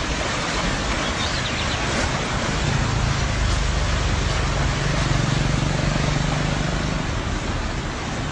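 Floodwater rushing in a loud, steady roar. A low steady hum joins in from about a third of the way through and fades before the end.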